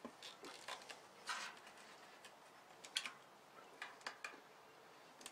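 Faint, scattered clicks and short scrapes of a knife blade scoring a length of 18-gauge steel wire against a wooden board.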